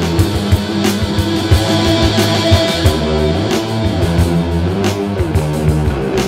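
Instrumental rock music: guitar over a steady drum beat, with no singing.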